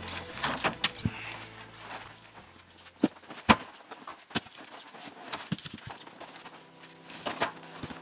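Birch log rounds knocking and thudding as they are heaved off a truck bed and dropped onto a pile of logs, about eight separate knocks spread out, the loudest a little past the middle.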